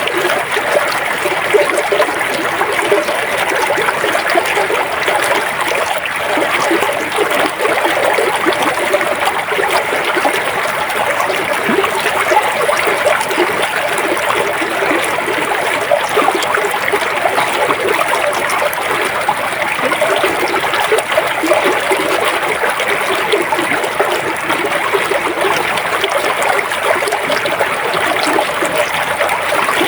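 Shallow river or stream flowing steadily over stones, a continuous babbling and trickling with no change in level.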